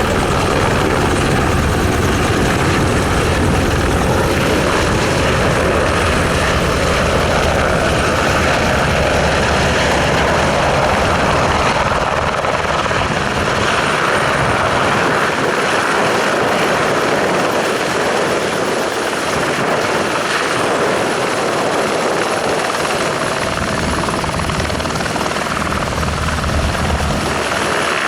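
Airbus H125 single-engine turbine helicopter flying in to land: steady rotor noise with a high turbine whine. The deep low rotor sound weakens about halfway through and comes back strongly near the end.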